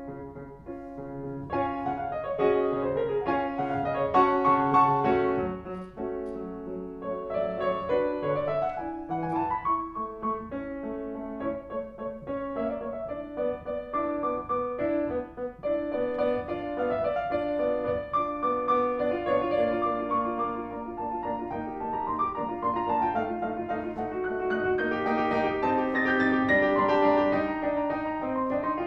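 Background piano music: a flowing instrumental piece with notes changing steadily throughout.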